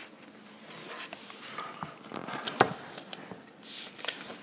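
Light handling noise of paper and a phone being moved: soft rustling and a few scattered light taps and clicks.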